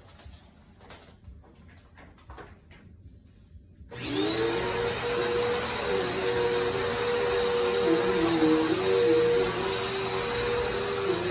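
Upright vacuum cleaner switched on about four seconds in: the motor spins up quickly to a steady high whine and runs on as it is pushed over the floor. Before it come a few faint clicks and rustles.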